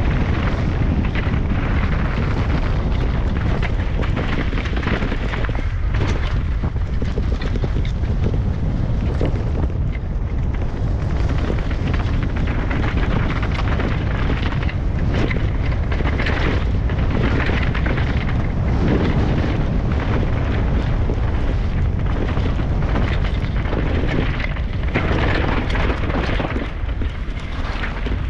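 Heavy wind buffeting on the microphone, a continuous rumble with irregular knocks and rattles, as from a camera carried on a fast ride down a rough dirt track.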